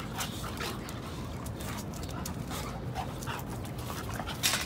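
Two young pit bulls play-fighting: panting and brief high whines amid scuffling, with one sharp, loud noise near the end.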